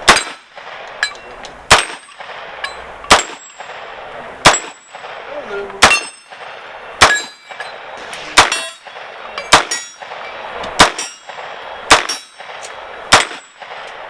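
A gun fired one shot at a time, about eleven shots at a steady pace a little over a second apart, each loud crack followed by a short metallic ring.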